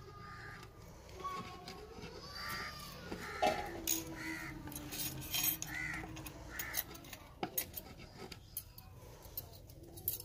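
A crow cawing, about six caws a little under a second apart. The clicks and scrapes of a wooden spatula against a clay serving bowl and an aluminium pot come in between the caws.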